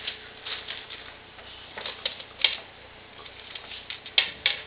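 Small plastic mosaic pegs clicking and rattling in irregular taps as they are picked from a tray and pressed into plastic pegboards. The sharpest clicks come about two and a half seconds in and twice near the end.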